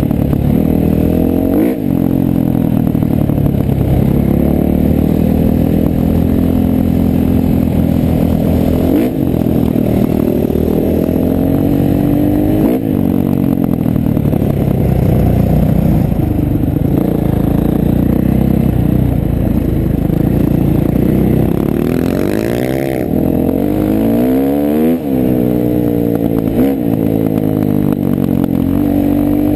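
Dirt bike engine heard up close from the rider's helmet camera, revving hard and climbing in pitch, then dropping at each gear change. About three quarters of the way through the revs swing up and down quickly several times.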